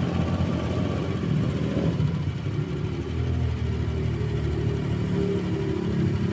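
Motor scooter engine idling steadily close by, a low even running note.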